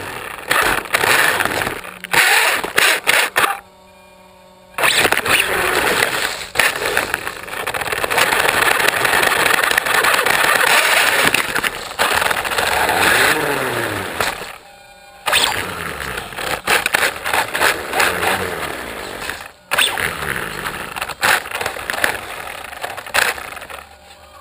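Onboard sound of a 1/16-scale RC car driving over concrete: motor and gear whine rising and falling with the throttle over the noise of the tyres rolling. The sound drops away briefly three times as the car stops.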